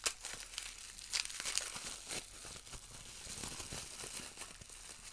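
Plastic bubble wrap crinkling and crackling irregularly as hands unwrap an item from it.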